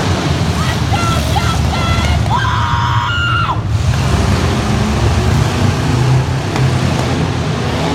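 Truck engine running loud and steady with a deep rumble; a few voices or shouts rise over it in the first few seconds.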